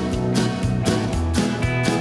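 Upbeat instrumental background music with a bass line over a steady beat.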